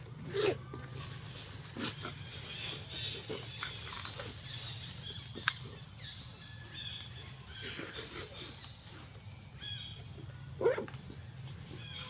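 Scattered short, high chirps and squeaks from animals, with a few sharp clicks and one louder call about ten and a half seconds in, over a steady low hum.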